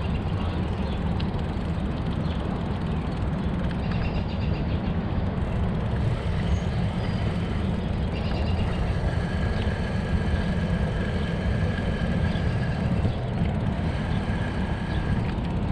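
Steady low rumble of wind buffeting the microphone of a camera moving along a paved path. Faint, thin, high steady tones come and go over it in the second half.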